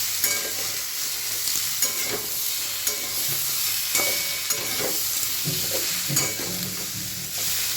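Mixed vegetables sizzling as they fry in mustard oil in a kadai, stirred with a spatula that clicks and scrapes against the pan now and then over a steady hiss.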